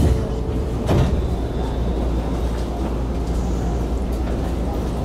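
Izuhakone Railway 5000-series electric train standing still, with a steady low hum from its equipment and one sharp knock about a second in.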